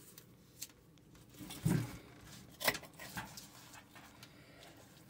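A fish scaler scraping scales off a striped bass's skin in a stainless-steel sink: a few short, scattered rasping strokes and clicks with quiet gaps between them.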